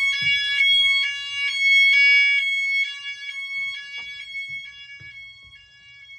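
Fire alarm sounding: a high, piercing steady tone with other tones switching on and off about twice a second. It is loud for the first three seconds, then grows steadily fainter.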